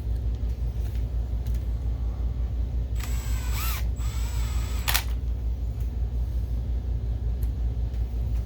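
A steady low hum throughout, with small bench handling noises over it: scattered clicks, a brief hissing, scraping burst about three seconds in, and a sharp click about five seconds in.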